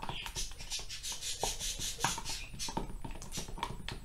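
Watery slime being stirred in a clear plastic tub: a quick run of short, irregular clicks and squelches. The slime has glue mixed into water that already holds borax activator, and it is starting to activate and thicken.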